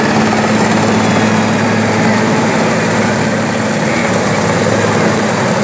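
Large helicopter flying low overhead: loud, steady rotor and engine noise with a low hum running underneath.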